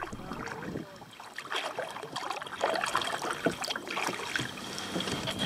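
Kayak paddle dipping into calm river water, with irregular splashes and drips of water.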